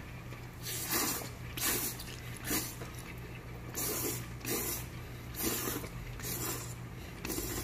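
A man slurping seafood kalguksu noodles from a bowl: a run of about eight noisy slurps, roughly one a second.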